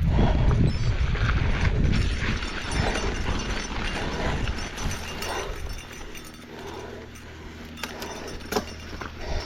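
A cyclist breathing heavily, hard in-and-out panting about once a second from the effort of pedalling uphill, over a low rumble of wind and the bike on the trail that eases after about five seconds.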